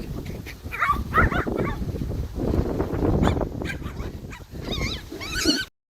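A dog whining and yipping in short, high, wavering cries, over low rumbling noise. The sound cuts off suddenly near the end.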